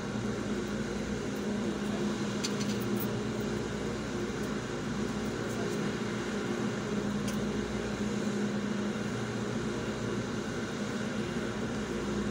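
Steady low hum of an idling vehicle and its air conditioning, heard from inside the cabin. A few faint ticks come about two and a half seconds and seven seconds in.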